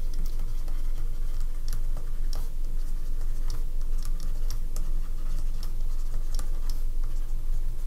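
Stylus tapping and scratching on a drawing tablet while handwriting, a string of irregular light clicks over a steady low hum.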